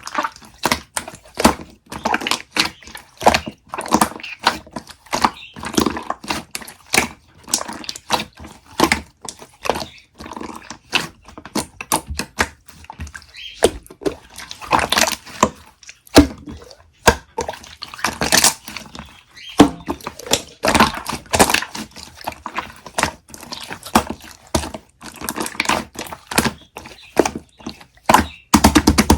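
Close-up run of irregular wet clicks, crackles and pops, coming thick and fast with short gaps and no steady rhythm.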